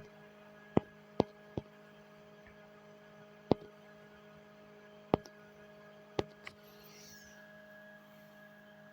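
Computer mouse clicking, about seven separate sharp clicks at irregular intervals, over a faint steady electrical hum.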